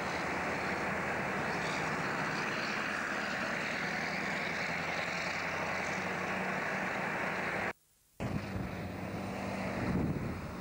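Diesel engine of a loaded log truck running steadily as it pulls along a highway bend. The sound cuts out completely for about half a second near three quarters of the way through, a tape edit, then another log truck's engine carries on.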